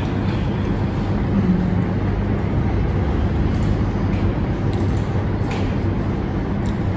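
Steady room background noise: a constant low hum under an even hiss, with a couple of faint clicks about three and a half and five and a half seconds in.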